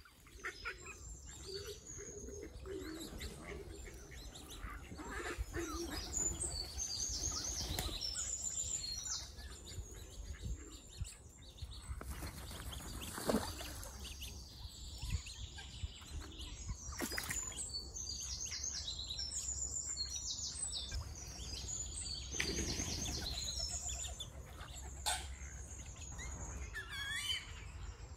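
Small songbirds singing in repeated runs of quick, high chirps and trills over a steady low background hum. A few short sharp knocks are heard, the loudest about halfway through.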